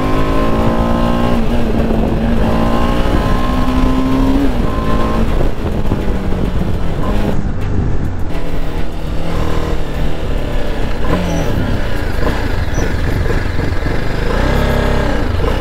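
BMW G 310 RR's single-cylinder engine running under way, with wind rushing past. Its pitch holds steady for the first few seconds, then drops as the bike slows, with a short rise and fall near the end.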